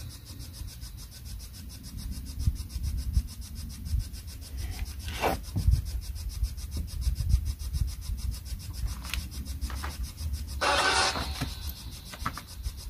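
Low rumbling and rubbing noise, with a short scrape about five seconds in and a louder rustle lasting about half a second near the end.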